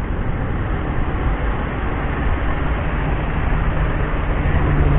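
Road traffic passing close by on a bend: engines of cars, a small pickup truck and motorcycles running, with tyre noise. A low engine drone grows louder toward the end.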